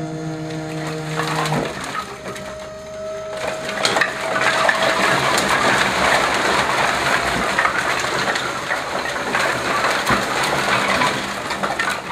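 Split firewood sliding and tumbling out of a tipped Saris PK 30 E trailer's mesh box onto a pile: a dense, continuous wood-on-wood clatter that builds about four seconds in and runs until near the end. Before that, a steady mechanical hum cuts off about a second and a half in.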